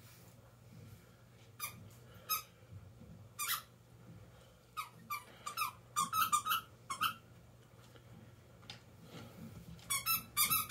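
A dog whining in short, high-pitched squeaky whimpers, some sliding up and down in pitch. A few come singly early on, then a quick run of them in the middle and another near the end.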